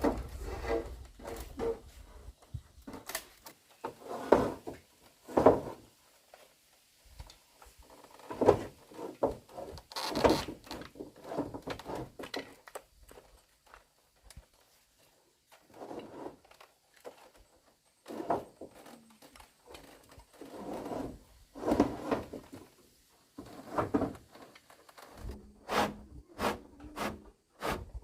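Irregular knocks and thuds, like wooden or bamboo pieces being handled and struck, coming in scattered clusters with short quiet gaps and a few sharper clicks near the end.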